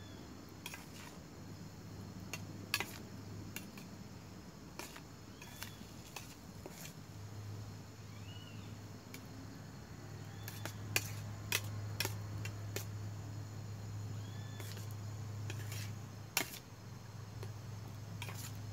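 A utensil scraping and clinking against a frying pan as rice and chorizo are stirred over a small fire, with irregular sharp clinks when it knocks the pan.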